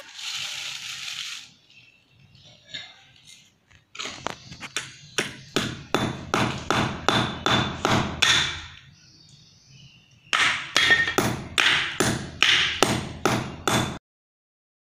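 A small hammer driving a nail into a wooden board: quick blows at about three a second, each a sharp knock with a light metallic ring. The blows come in two runs, with a pause of about a second and a half between them.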